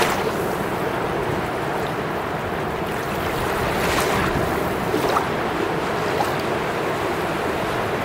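Small sea waves breaking and washing up the sandy shore close by, a steady hiss of surf that swells at the start and again about four seconds in as each wave comes in.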